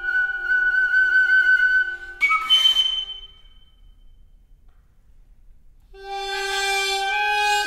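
Contemporary chamber music for nohkan, piri, sheng and clarinet. Several held wind tones sound together, then break off about two seconds in with a breathy, airy flourish. After a quiet pause of about three seconds, a full, bright chord of many pitches enters near the end.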